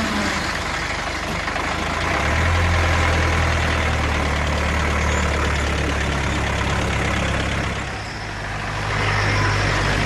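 Open safari jeep's engine running, with its level building about two seconds in, easing off around the eighth second and rising again near the end.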